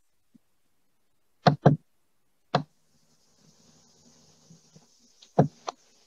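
Sharp clicks at the computer as the slides are paged through: a quick pair about one and a half seconds in, a single click a second later, and another pair near the end.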